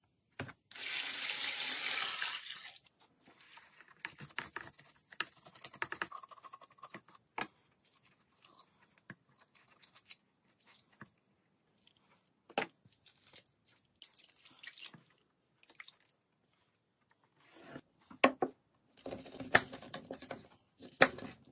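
Water rushing into a plastic basin for about two seconds, then splashing and dripping as a whole pike is rinsed by hand in the water. Near the end, a few sharp knocks and scrapes as the fish is handled on a cutting board.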